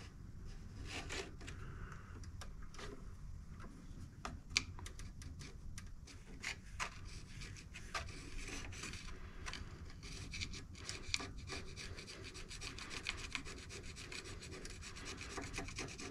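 Carbide hand scraper scraping old valve-cover gasket material off the aluminum head of a Briggs & Stratton V-twin engine: faint, short, irregular scraping strokes, with a few sharper ticks along the way.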